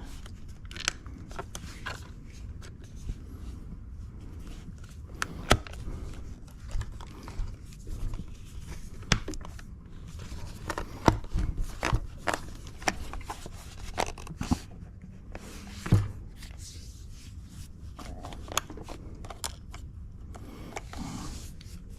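Plastic trim pieces of a yoke steering wheel being handled and pressed into place by hand: scattered sharp clicks and taps with light scraping, irregular and a second or two apart.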